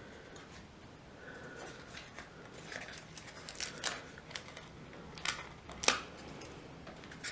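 White card stock being handled and folded by hand: soft papery rustling with a run of crisp clicks and snaps, the sharpest about five and six seconds in.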